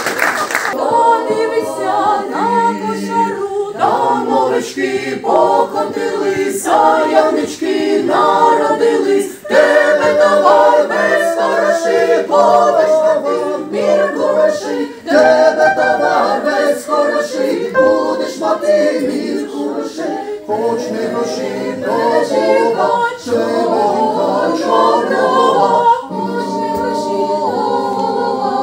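A Ukrainian folk choir, mostly women's voices, singing a cappella in several parts, phrase after phrase, with short breaths between the phrases.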